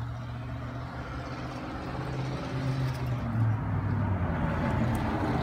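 Wind blowing outdoors, swelling and easing, over a steady low engine-like hum.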